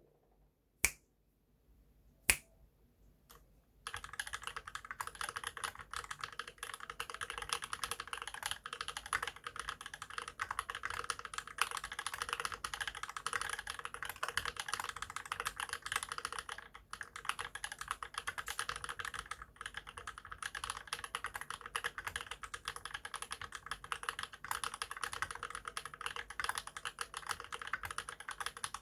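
Monstargear XO v2 mechanical keyboard with lubed Holy Panda tactile switches and GMK keycaps being typed on. Two single sharp clicks come first, then fast continuous typing starts about four seconds in, with a couple of brief pauses.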